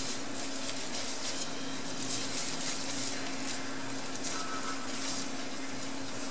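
Disposable plastic gloves crinkling and rustling as hands roll ground-pork meatball mixture into balls, over a steady low hum.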